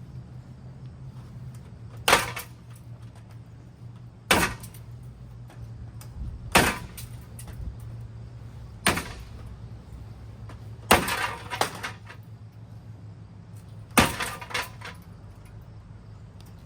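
Ceiling fan being smashed apart: a series of hard cracking impacts, about one every two seconds, some doubled, each with a short ringing rattle, over a steady low hum.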